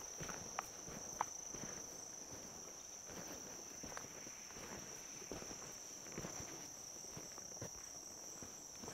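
Insects singing in one steady high-pitched band, with soft footsteps on a woodland path and two sharp clicks in the first second and a half.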